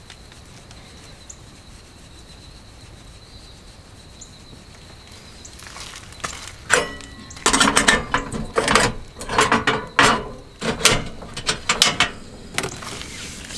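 Clattering and rattling of things being handled at a small wooden van kitchen counter. The sharp, irregular knocks start about halfway through and run for several seconds.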